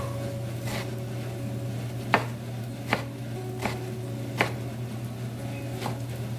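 Kitchen knife chopping lettuce on a wooden cutting board: about half a dozen separate chops, each a sharp knock of the blade on the board, spaced most of a second apart.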